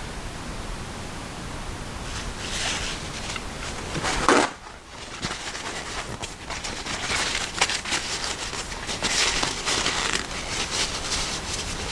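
Handling and wiping of small knife parts during cleaning: rustling of a cloth or paper towel with many small clicks and taps of parts being picked up and set down, over a steady hiss. One louder knock comes a little over four seconds in.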